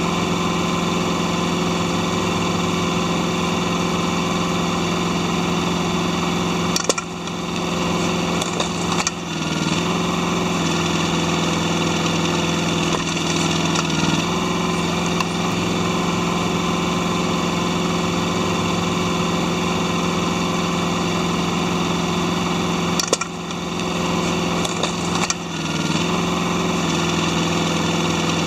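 Yanmar SV08-1A mini excavator's diesel engine running at a steady speed. Its tone dips briefly several times as the hydraulics take load while the demolition crusher attachment is worked. A couple of sharp clicks come with the loading, one about seven seconds in and one near the end.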